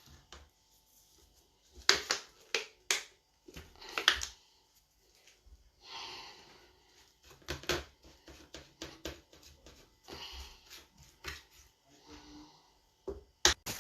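Scattered clicks and knocks with a few short scraping sounds as food and kitchen containers are handled while seasoning is mixed in.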